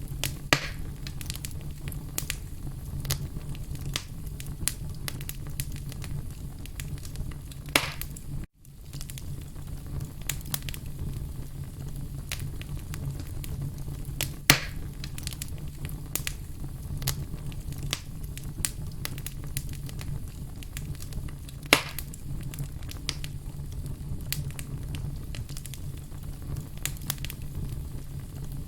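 Wood logs burning in a fireplace: a steady low rumble of flame with frequent small crackles and a few sharp pops, the loudest four spread about seven seconds apart. The sound cuts out for an instant about eight and a half seconds in.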